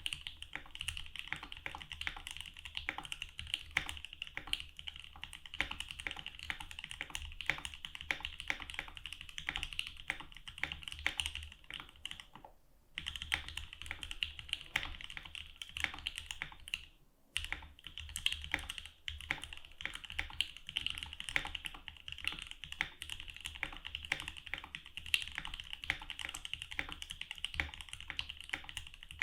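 Fast continuous typing on a mechanical keyboard with lubed and filmed JWK Durock L3 linear switches in an FB60 case, a dense run of keystroke clacks with two brief pauses around the middle.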